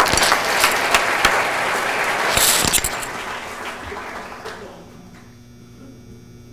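Audience applauding, fading out about five seconds in and leaving a steady electrical mains hum.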